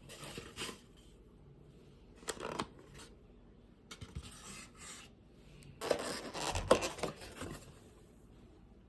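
Scattered light rustles, scrapes and clicks of small objects being handled in a quiet small room, busiest about six to seven and a half seconds in.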